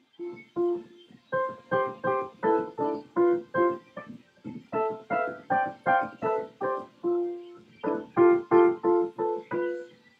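Electronic keyboard played with a cat's paws: about two dozen single notes at an even pace, each struck and fading, grouped in short phrases with brief pauses.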